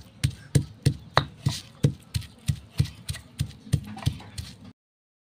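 Stone pestle pounding garlic cloves and salt in a stone mortar, with sharp knocks about three a second. The knocks cut off suddenly near the end.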